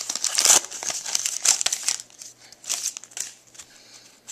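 Trading-card pack wrapper being torn open and crinkled by hand, loud and crackly for about two seconds. Then quieter scattered rustles and clicks follow as the cards are handled.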